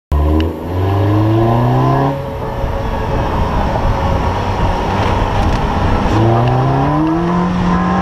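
Car engine accelerating, its pitch rising twice: once at the start and again about six seconds in. Between the two, tyre and wind noise from driving on the road.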